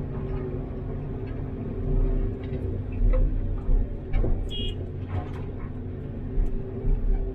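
CAT 329D excavator's diesel engine running steadily, with several heavy low thumps and scattered knocks and clanks from the machine working. A brief high squeal sounds about halfway through.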